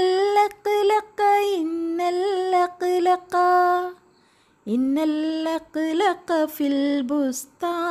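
A woman singing a short Arabic children's rhyme unaccompanied, in two sung phrases of held notes with a short break about four seconds in.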